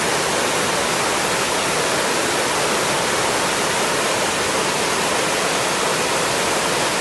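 Loud, steady rush of water, even and unbroken, from torrential rain and floodwater in a street.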